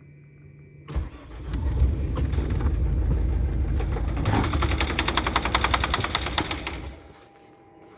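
Mazda 6 2.0 diesel engine starting about a second in and running with a rapid, regular knock, which the owner takes for piston knock; the engine stops about seven seconds in.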